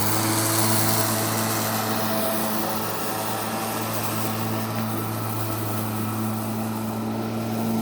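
Greenworks electric lawn mower running steadily while cutting grass: an even motor hum with the whir of the blade, a little fainter from about three seconds in.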